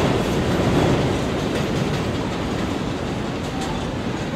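A New York City Subway 4 train pulling out of an elevated station, its rumble and wheel noise on the rails fading slowly as it moves away.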